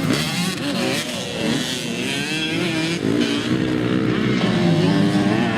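Several motocross bike engines running and revving together, their pitches wavering up and down.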